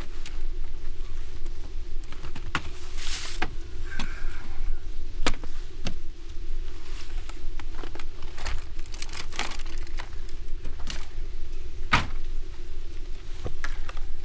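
Knocks, clicks and rattles of gear being shifted around in a sedan's open trunk, over a steady low hum. Near the end comes a single sharp slam as the trunk lid is shut.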